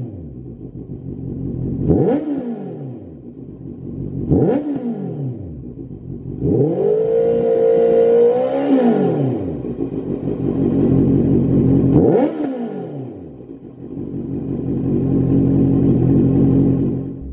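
Honda CB650F's 649 cc inline-four engine breathing through a Lextek SP8C carbon aftermarket silencer, revved while stationary: quick throttle blips and one rev held for a couple of seconds in the middle, each falling back to idle, then a slower rise in revs near the end.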